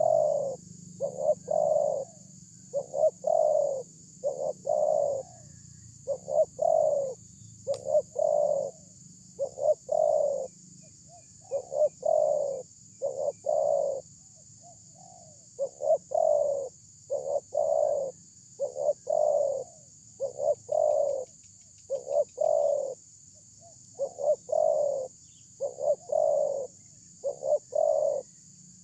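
Spotted dove cooing: short phrases of two or three deep coos, repeated over and over with brief gaps, about one phrase every two seconds.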